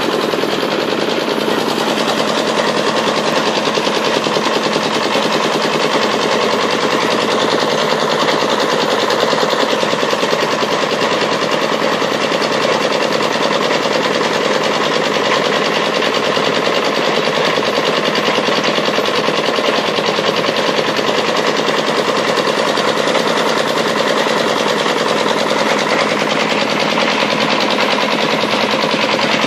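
Water-well drilling rig running steadily, a rapid, even rattle of mechanical strokes that keeps up without a break.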